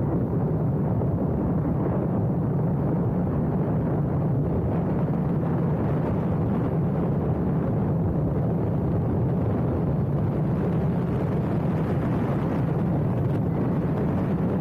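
Motorcycle running at a steady cruising speed, its engine drone mixed with wind rush on the microphone.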